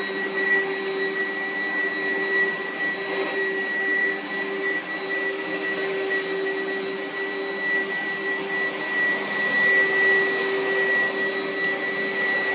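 A small electric motor running steadily at constant speed with a high whine.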